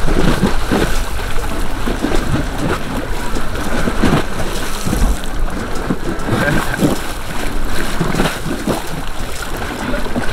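Gusting wind buffeting the microphone, over choppy water washing against the pier.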